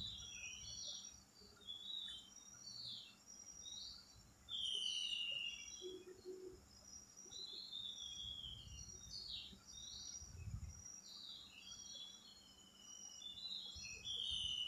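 Birds chirping, a steady run of short rising and falling calls, with a soft low thump about ten seconds in.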